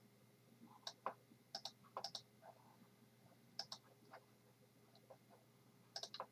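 Near silence broken by faint computer clicks, about six times, mostly in quick pairs.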